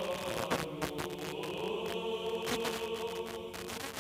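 FM radio broadcast received on a phone's FM tuner: sustained, chant-like vocal music with held tones, broken throughout by frequent short crackles of interference.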